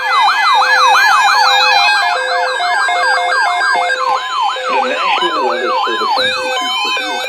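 Electronic siren sweeping rapidly up and down in pitch, the sweeps slowing from about four a second to under two a second, layered with a lower beeping tone and fainter wavering tones above.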